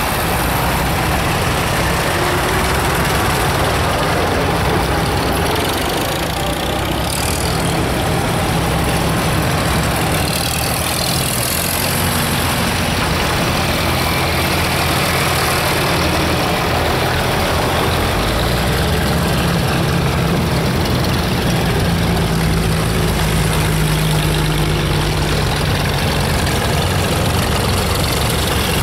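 Engines of antique farm tractors running at low speed as they drive past one after another, a steady low drone. In the second half a stronger, steady engine note holds for several seconds as one tractor runs close by.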